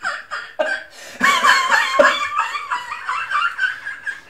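Men laughing: short bursts at first, then louder, unbroken laughter from about a second in.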